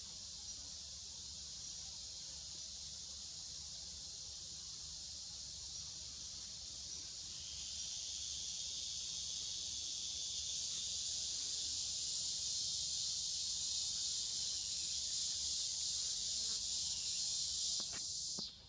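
Steady high-pitched insect chorus droning in the forest canopy, growing louder about halfway through and cutting off suddenly near the end.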